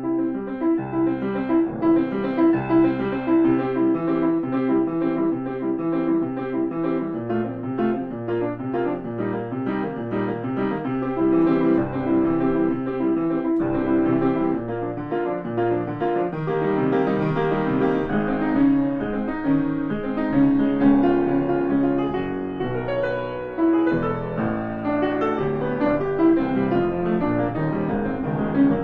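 Grand piano played solo: a freely improvised passage, a dense, unbroken stream of notes, with quick repeated notes in the middle register through the first half.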